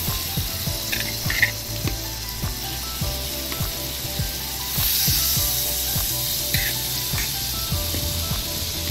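Marinated beef pieces sizzling in melted butter on a flat iron dosa griddle as more pieces are laid in, with a few light clinks of the metal utensil against the griddle. The sizzle swells about five seconds in.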